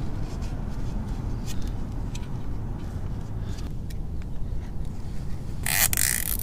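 A plastic zip tie being threaded around a carbon-fibre swingarm guard, then pulled tight with one short zipping rasp near the end. A steady low rumble runs underneath.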